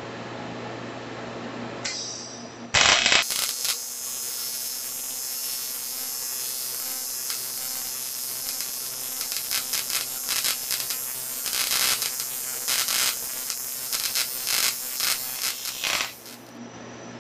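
AC TIG welding arc on an aluminium tube: the arc strikes about three seconds in with a sharp burst, then runs as a steady hiss with irregular crackles, louder in the last few seconds, and cuts off suddenly near the end.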